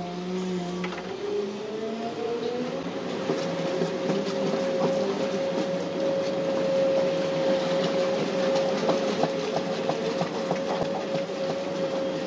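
Hitachi 850LC excavator's diesel engine and hydraulics running under load, heard from inside the cab. A steady whine rises in pitch about two seconds in and then holds, with scattered light clicks and rattles over it.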